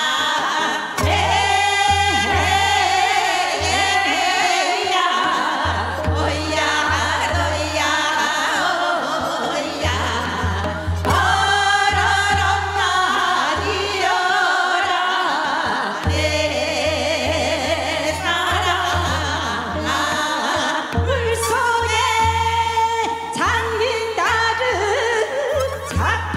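A woman singing Seodo sori, the Korean folk song of the northwestern provinces, in long phrases with a strongly wavering voice. A low, regular pulsing beat in the accompaniment drops out between phrases.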